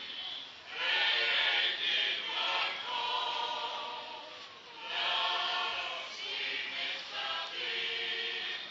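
A choir singing in long phrases, with short breaks between them about a second in and again near five seconds.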